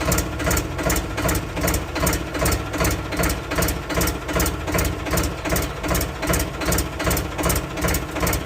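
Swaraj 855 tractor's diesel engine running at idle, with a steady throb about three times a second.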